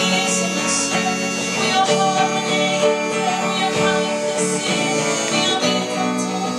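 Live song: a woman singing with a man playing chords on an archtop guitar.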